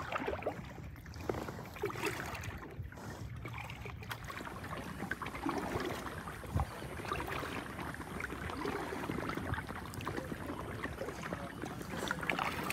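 Light water sounds around a kayak: small splashes and water lapping against the hull, with an occasional soft knock.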